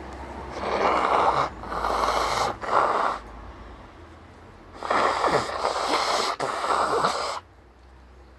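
A person sneezing in two fits of several sneezes each, one starting about half a second in and the other near the middle, brought on by hay fever.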